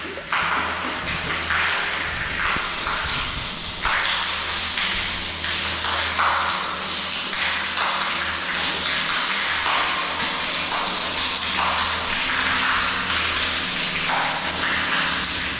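Bore water pouring steadily from a poly pipe into a nearly empty concrete water tank, splashing onto the shallow water on the tank floor.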